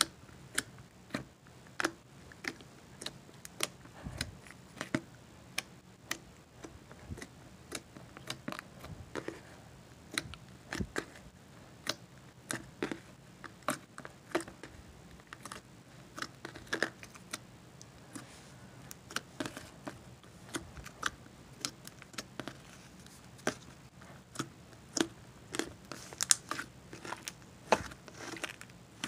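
Hand sanitizer slime with eraser pieces mixed in, being poked and squished by hand: irregular small clicks, pops and crackles, a few every second.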